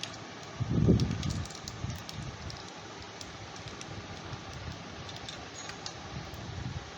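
Small sharp clicks and handling noise as a CPU cooler's push-pin fasteners are pressed and locked into the motherboard's mounting holes, with a dull low bump about a second in, over a steady hiss.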